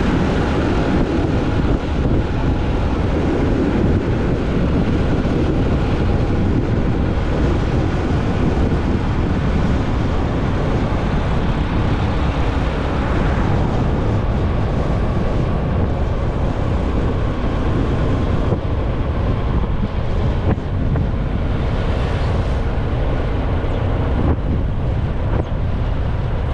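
Wind buffeting the microphone on a moving motorcycle, with the motorcycle's engine running steadily underneath.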